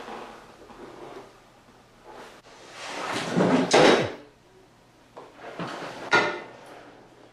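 A heavy motorcycle being rocked and heaved up onto its stand: a series of scrapes and clunks, the loudest about three to four seconds in.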